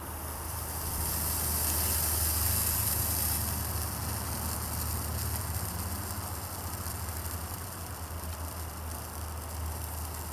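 Soldering gun humming steadily while flux sizzles and smokes on the heated wire joint. The hiss comes in suddenly, is strongest over the first few seconds, then eases.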